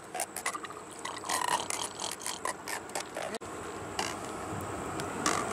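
Armado catfish held out of the water, stridulating: a rapid run of creaking, ratchet-like clicks and rasps. They cut off abruptly about three and a half seconds in.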